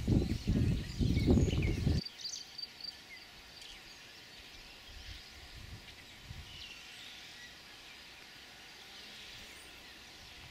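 Wind buffeting the microphone in loud, irregular low rumbles for about two seconds, then an abrupt cut to quieter outdoor ambience with scattered small bird chirps.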